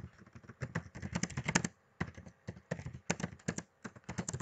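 Typing on a computer keyboard: quick runs of key clicks, with a brief pause about two seconds in.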